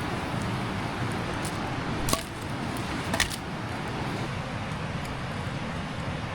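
Steady rushing of a rocky mountain creek, with two sharp clicks about a second apart, the second a quick double.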